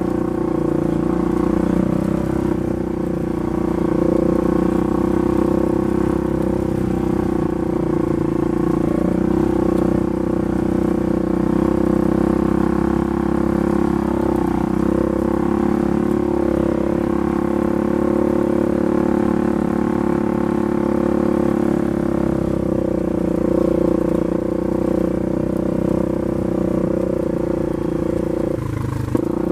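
Rebuilt Polaris 570 single-cylinder engine running at a steady speed, briefly interrupted near the end.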